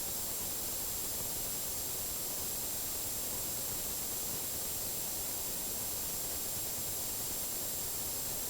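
Steady hiss like static, with a thin high-pitched whine held on one note.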